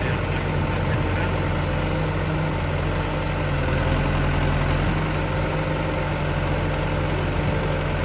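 FB110.2 backhoe loader's diesel engine running steadily while the boom and bucket move.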